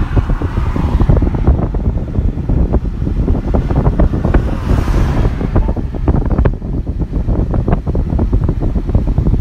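Strong dust-storm wind buffeting the phone's microphone at a car's side window, a dense rumble with many short crackles throughout.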